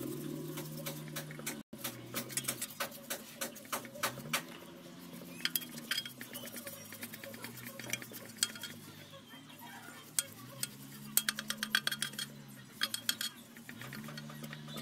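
Small brush scrubbing the inside of a scooter's metal CVT cover to clean off grime, in quick runs of rapid scraping, clicking strokes.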